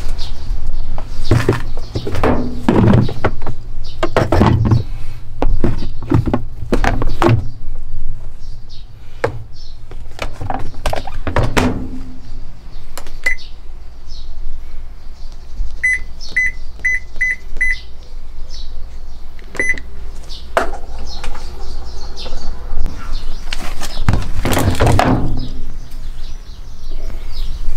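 Control panel of a Toshiba AW-42SC top-loading washing machine beeping as its buttons are pressed: one short beep, then a run of five quick beeps, then one more. Before and after the beeps come knocks and thumps of handling at the machine; the loudest come near the end.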